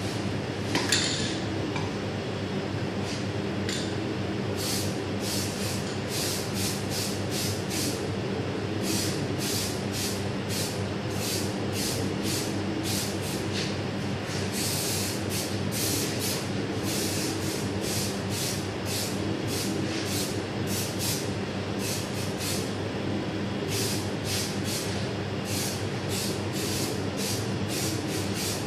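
Aerosol spray can hissing in many short bursts, often several a second with brief pauses, over a steady machine hum. A single sharp knock comes about a second in.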